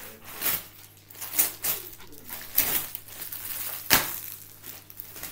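Wrapping paper rustling and tearing as a present is unwrapped, with several sharp crackles, the loudest about four seconds in.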